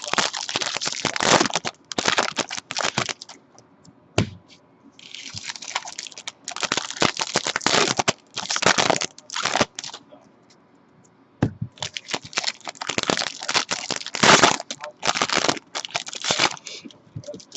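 Trading card pack wrappers crinkling and tearing as packs from a 2015 Bowman football hobby box are ripped open, in repeated bursts with a pause about ten seconds in.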